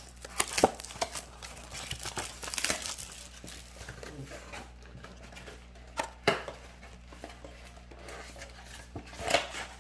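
Crinkly plastic wrapping on a trading-card mini box crackling and tearing as it is unwrapped by hand. The crinkling is dense for the first few seconds, then comes in short sharp bursts, about six seconds in and again near the end.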